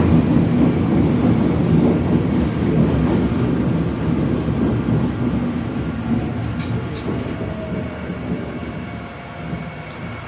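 Subway train heard from inside the car: a low running rumble that dies away steadily as the train slows into a station.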